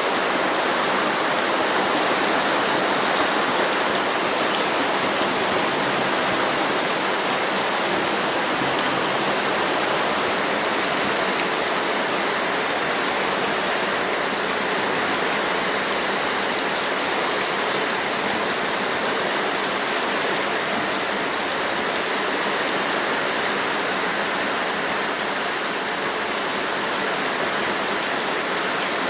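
Water rushing steadily out through an unplugged drain and pouring down into a ditch.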